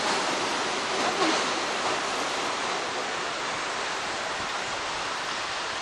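Steady rushing street noise as a Wuppertal Schwebebahn suspension-railway car runs off along its overhead track, with cars passing beneath; a little louder in the first two seconds.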